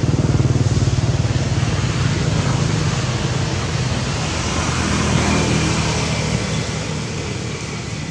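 A motor vehicle engine running with a steady low hum, loudest at first, swelling again about five seconds in and then fading away.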